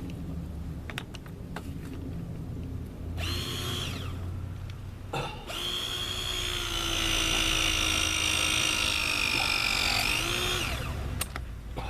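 Handheld power tool motor running in two spells: a short burst about three seconds in, then a steady whine of about five seconds that rises and then drops in pitch as it is released.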